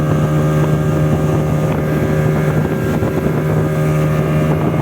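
Speedboat engine running at a steady, unchanging pitch, with wind noise on the microphone.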